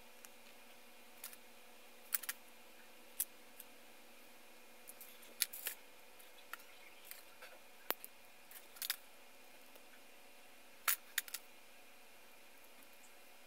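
Gundam plastic model kit runners being handled: scattered sharp plastic clicks and light clatter, about a dozen separate clicks, over a faint steady hum.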